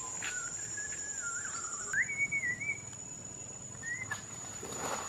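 A wavering whistled tone that slides about in pitch, steps up about two seconds in and breaks off, followed by a short upward whistle near four seconds. A steady, high, thin insect drone runs underneath.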